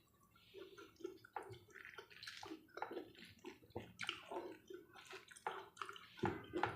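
Someone eating: quiet, irregular wet chewing and lip-smacking clicks a few tenths of a second apart.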